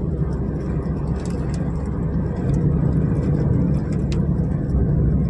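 A small car's engine and tyre noise heard from inside the cabin while driving along a country road: a steady low rumble.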